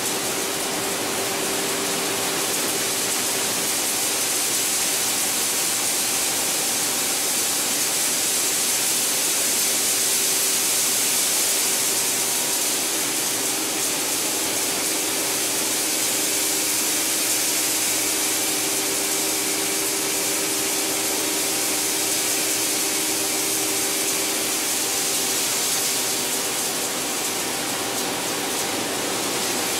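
PET bottle washing line running: a steady hiss of spraying and falling water over a constant machine hum.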